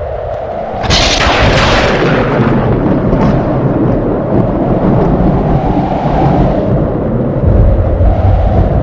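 A thunderclap cracks sharply about a second in, then rumbles on for several seconds over a steady storm background.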